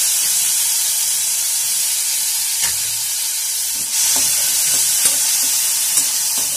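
Chopped tomatoes sizzling in a hot kadhai, stirred with a perforated steel ladle. The ladle scrapes and clicks against the pan a few times over the steady sizzle.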